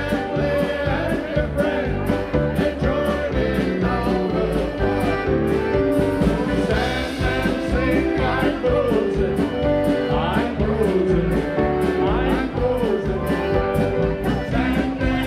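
Polka band music with singing, played to a steady, even beat.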